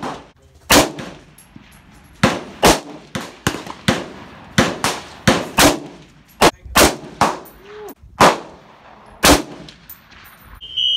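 Rifle shots on an outdoor range, about fourteen sharp reports at irregular intervals, each with a short echo. A high steady alarm tone, the smoke/fire alarm, starts near the end.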